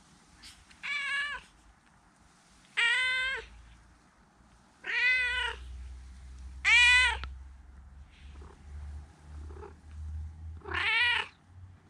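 Tortoiseshell cat meowing five times, short meows that rise and fall in pitch, spaced one to three seconds apart, the fourth the loudest.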